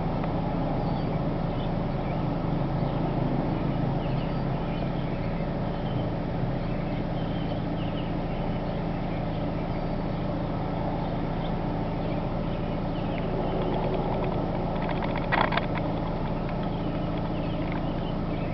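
A car engine running steadily with a low, even hum. A brief, higher-pitched sound cuts in once about fifteen seconds in.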